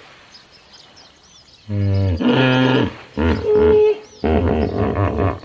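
Hippopotamus calling: after a quiet start with faint bird chirps, a series of loud, deep honking calls begins about a second and a half in and comes in several bouts.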